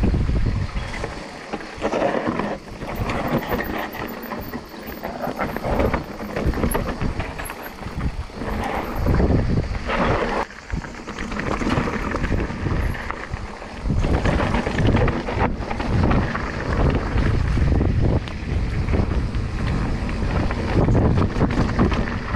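Electric mountain bike rolling down a dirt and rock singletrack: tyres rumbling over the trail, the noise swelling and dropping with the terrain, mixed with wind buffeting the camera microphone.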